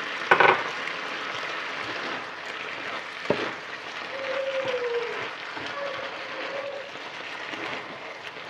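Sauced vegetables sizzling in a frying pan as they are stirred and tossed with a wooden spatula and chopsticks, with a loud clatter of utensils against the pan just after the start and a sharp click a few seconds later. A brief falling tone sounds about four seconds in.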